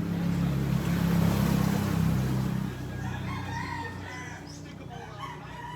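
A motor vehicle's engine drones steadily, then dies away about three seconds in, leaving a rooster crowing and chickens clucking.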